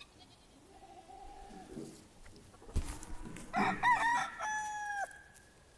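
A rooster crowing once, about three and a half seconds in: a broken, wavering start followed by a long held note that drops off at the end. A single sharp knock comes just before it.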